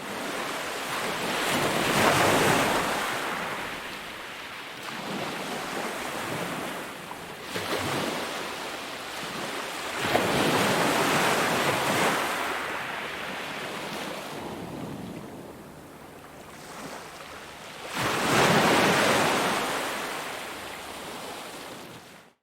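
Ocean waves breaking, a continuous wash that swells and eases in surges every few seconds, with about four larger waves.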